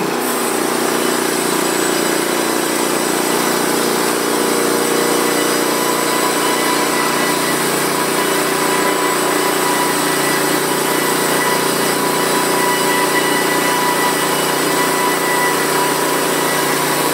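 Norwood portable band sawmill running steadily under load, its band blade cutting a board off a pine log as the saw head is pushed by hand along the track. A constant engine note with a few high steady tones over it.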